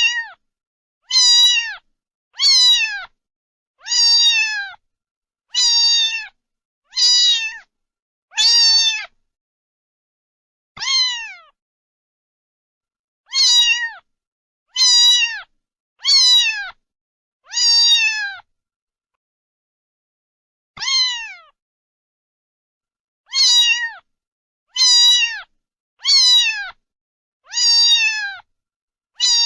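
Domestic cat meowing over and over: about seventeen short, alike meows, each falling in pitch at the end, with dead silence between them and two longer pauses.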